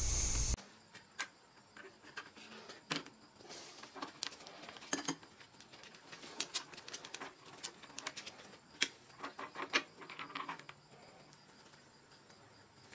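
Scattered light metal clicks and clinks as the steel parts of a quick-change tool post are handled and unscrewed during disassembly.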